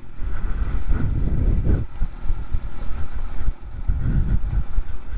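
Suzuki GSX-R 750 K4's inline-four engine running at low revs as the motorcycle rolls slowly, with an uneven low rumble that dips briefly about halfway through.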